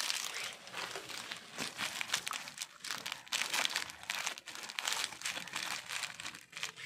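Packaging being handled and crumpled in the hands: a continuous, irregular crinkling crackle that thins out near the end.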